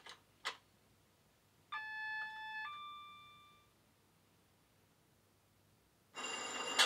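Class 70 diesel locomotive sound file played by a model's DCC sound decoder through a small EM1 speaker, beginning its start-up sequence. Two clicks, then a two-part electronic chime that fades, and about six seconds in a loud steady whirr with several tones sets in.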